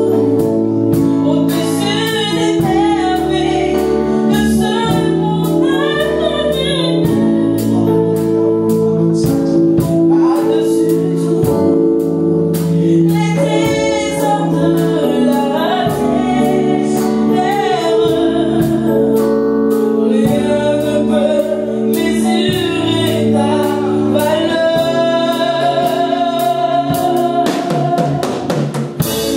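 Gospel worship song performed live: a woman's lead vocal with other singers, over held instrumental chords.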